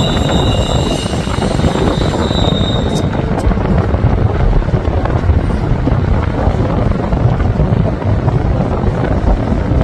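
Train rolling past with a heavy low rumble, its wheels squealing in high steady tones for the first three seconds before the squeal stops.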